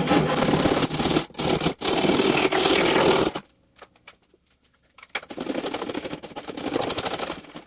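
Japanese pull saw sawing through cedar strips in quick strokes, trimming them flush near a kayak's stem. It stops about three seconds in, and after a short pause a small block plane shaves the cedar strip edges at the stem in rapid scraping strokes.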